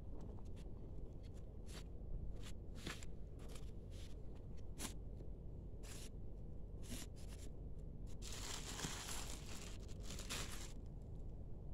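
Clear plastic wrapping and a non-woven shopping bag crinkling and rustling as they are handled, in scattered sharp crackles. A longer, denser rustle comes about eight seconds in as the plastic-wrapped bag is moved. A steady low hum runs underneath.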